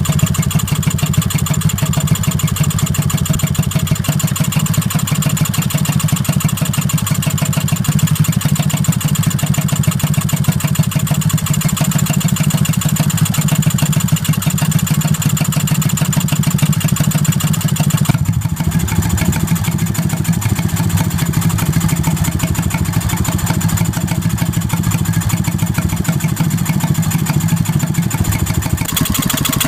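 Villiers WX11 stationary engine running steadily on its own, a fast even beat throughout. It has been running again since a rebuild with new main bearings and small end, and its big end bearing still needs renewing.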